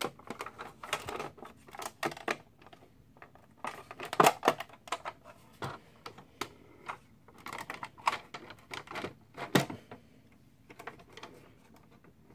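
Hard plastic clicks and taps from the Masterpiece MP-10 Optimus Prime toy trailer being opened by hand, its roof halves and side panels unfolding. The clicks come irregularly, the loudest about four seconds in and again about nine and a half seconds in, then grow sparse.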